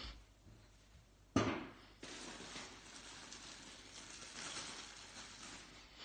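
A single sharp cough about a second and a half in, dying away within about half a second, followed by a steady faint hiss.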